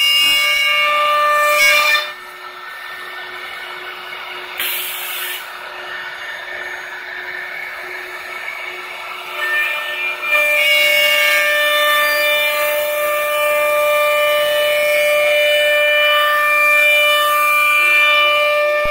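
Wood CNC router spindle cutting curved plywood chair parts: a loud, steady, high-pitched whine with the rasp of the cut. The whine drops to a quieter stretch about two seconds in, broken by a short hiss, then comes back loud at about ten seconds.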